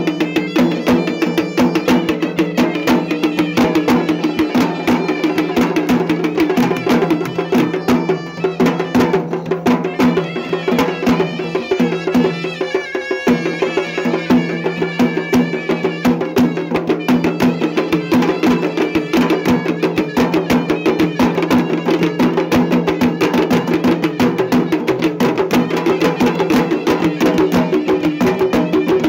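Sri Lankan traditional procession drums played in a fast, continuous rhythm of sharp strokes, over a steady held tone that breaks off briefly about halfway through.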